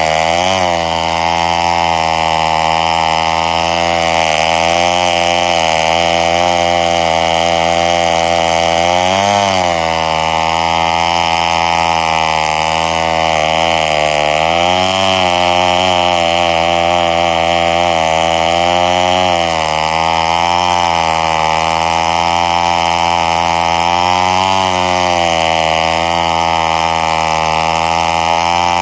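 Two-stroke chainsaw engine running steadily at low speed, its pitch dipping and rising slightly now and then.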